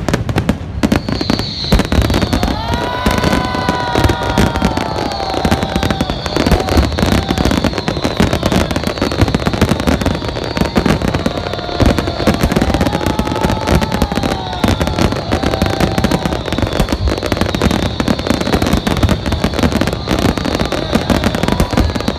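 A large aerial fireworks display bursting continuously, a dense run of bangs and crackling. A high whistle runs through it, and a few rising-and-falling tones come and go.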